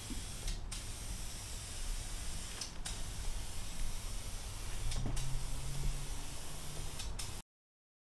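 Aerosol spray paint can hissing steadily as a coat is sprayed onto a motorcycle gas tank, over a low steady hum; the sound cuts off abruptly a little before the end.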